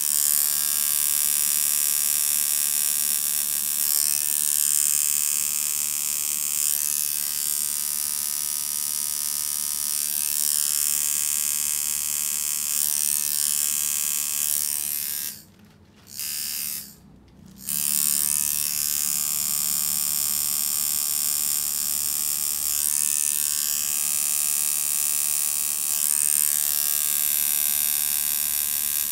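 Custom coil tattoo machine buzzing steadily as its needle works ink into skin. It cuts out twice briefly about halfway through, then starts again.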